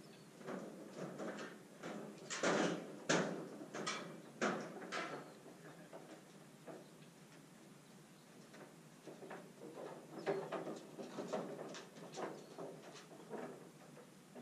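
Irregular clicks and knocks with rustling: a dense run in the first few seconds, a lull, then another run in the second half.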